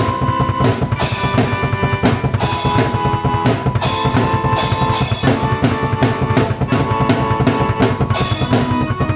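Drum kit and keyboard played together: a busy, steady beat of bass drum and snare under sustained keyboard notes and chords.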